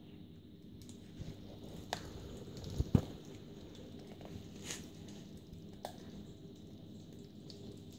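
Oriental Shorthair cats chewing raw chicken necks: wet squishing with a few sharp crunches of bone, the loudest about three seconds in.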